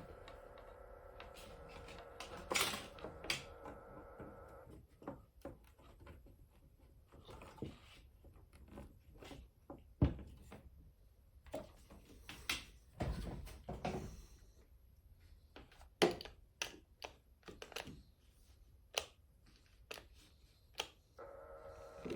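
Irregular clicks and knocks of the original Macintosh mouse being plugged in and handled, with a few louder thuds spread through.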